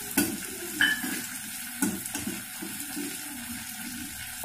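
Gram flour (besan) frying in oil in a steel kadhai: a steady sizzle, with a spatula scraping and stirring. There are a few sharp metal clinks against the pan in the first two seconds, one briefly ringing. The besan is being roasted to cook off its raw taste.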